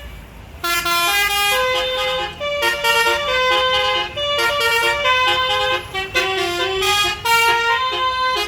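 A bus's 12-trumpet basuri (telolet) musical air horn playing a tune, a string of held notes stepping up and down in short phrases with brief breaks. It starts about half a second in.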